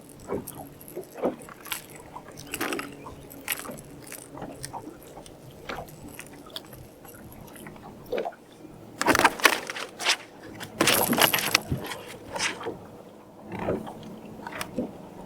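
Handling noise as a freshly landed blue catfish is dealt with in a boat: irregular clicks, knocks and scrapes, with two louder rustling, scraping bursts about nine and eleven seconds in.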